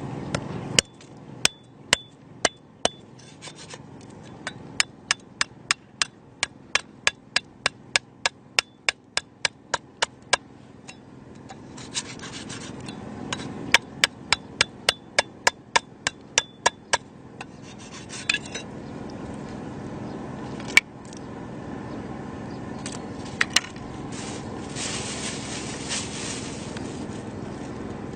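Rapid series of sharp knocks, about two to three a second, in two runs of several seconds each, followed by a few single knocks.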